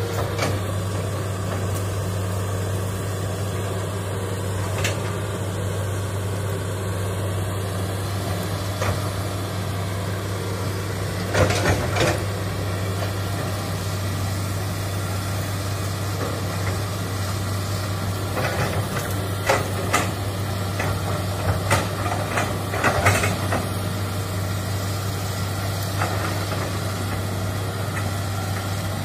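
Crawler excavator's diesel engine running steadily with a low hum. Sharp knocks and cracks break in twice, a cluster about a third of the way through and a longer run later on, as the machine works among the uprooted vegetation.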